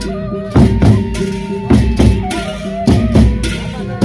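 Sasak gendang beleq ensemble playing: large barrel drums beaten by hand and stick with cymbal clashes, strikes landing about every half second. A held, wavering melodic tone sounds over the percussion.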